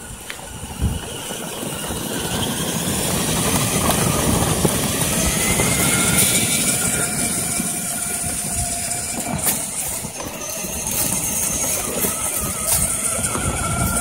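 1/8-scale RC monster-truck wrecker driving, its drive motor whining steadily and its pitch rising and falling with speed, over a low rumble from the running gear. A few sharp clicks in the last few seconds.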